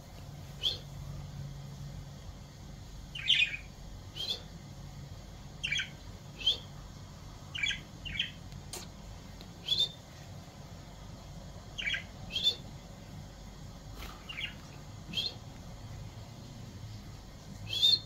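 Budgerigars giving short, sharp chirps, one every second or two, over a faint low steady hum.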